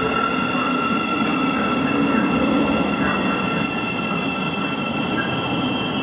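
Siemens Class 700 electric multiple unit arriving at the platform and running slowly past, its wheels rumbling under several steady high-pitched whines; the rumble is loudest about two seconds in.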